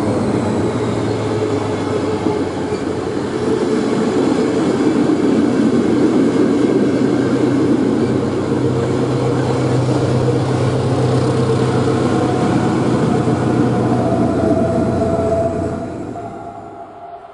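Double-deck passenger coaches of a diesel-hauled train rolling past close by, a steady loud rumble of wheels on rails. The sound fades away near the end.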